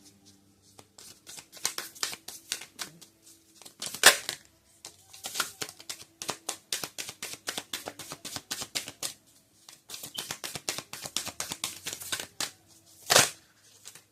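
A deck of tarot cards being shuffled by hand: long runs of rapid flicking clicks, with a louder slap of the cards about four seconds in and another near the end.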